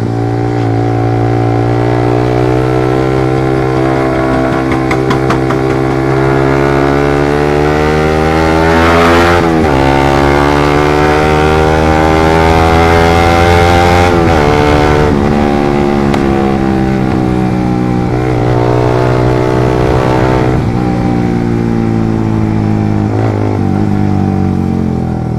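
Suzuki GSX motorcycle with a short Pro Liner aftermarket exhaust, accelerating through the gears: the engine note climbs slowly and drops abruptly at each upshift, about three times. The exhaust note is dense and bassy, not tinny.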